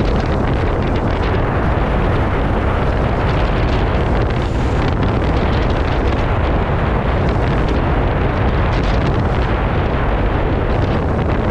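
Wind buffeting the microphone: a loud, steady rushing noise, heaviest in the low end, with no breaks.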